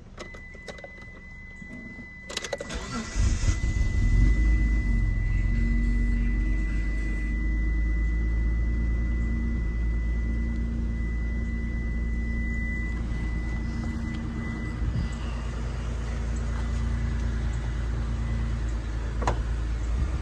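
Dodge Stealth R/T's naturally aspirated 3.0-litre V6 started on its stock exhaust: a click of the key about two seconds in, a brief crank, and the engine catches and settles into a steady, fairly quiet idle. A steady high warning chime sounds until about thirteen seconds in, and there is a click, likely the door, near the end.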